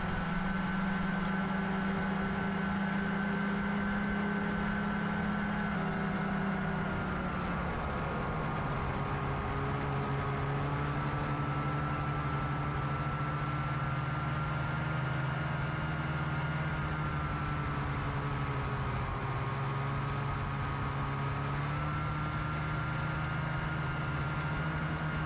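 Snowmobile engine running steadily while riding along a trail. The engine note drops slightly about seven seconds in, then holds steady.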